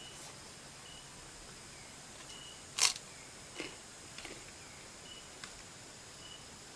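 Clicks and taps while eating: one sharp click about three seconds in, then a few softer ones. Behind them a faint high chirp repeats about once a second.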